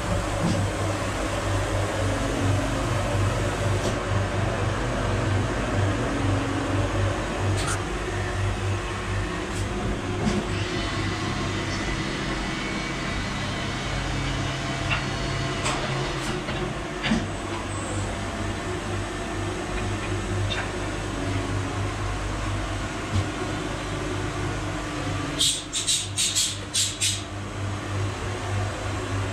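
Steady mechanical hum of vacuum-coating lab machinery, with scattered light knocks from parts being handled at the open chamber and a quick run of sharp clicks near the end.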